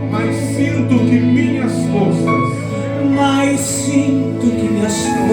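Live gospel worship music playing between sung lines, with held chords over a steady low bass note that fades out about four and a half seconds in.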